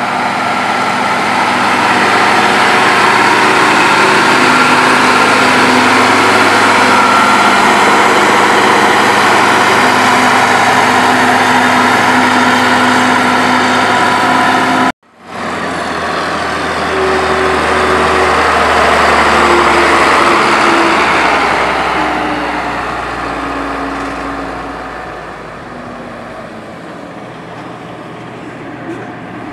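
Heavy road-construction machinery engines running steadily at close range. About halfway the sound cuts off for an instant, then a machine runs again and grows quieter over the last several seconds.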